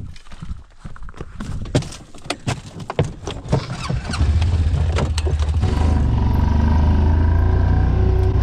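Footsteps and knocks as someone climbs into a Honda side-by-side UTV, then its engine starts about four seconds in and runs with a steady low hum.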